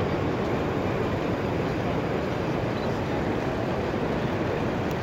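Steady background hubbub of a crowded exhibition hall: an even wash of many distant voices and movement with no single sound standing out.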